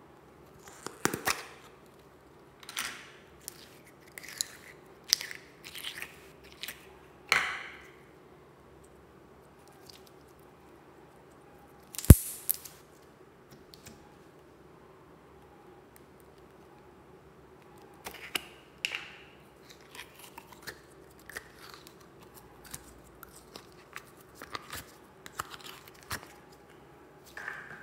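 A small plastic slime tub being handled and opened, and slime and putty being worked by hand: scattered short crackles, clicks and sticky squishes, with one sharp, loud snap about twelve seconds in.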